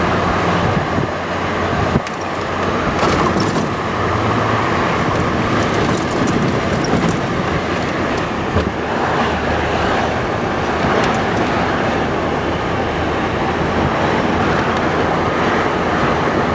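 Steady rumble of a moving train heard from on board, with a few faint clicks.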